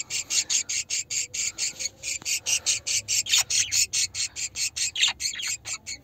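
A flock of budgerigars calling, over a fast, even chirring pulse of about five or six beats a second. A few sharp falling chirps stand out in the second half.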